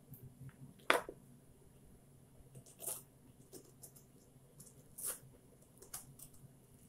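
A metal teaspoon scraping the seeds out of zucchini spears on a plastic cutting board: short scrapes and clicks a second or two apart, the sharpest about a second in.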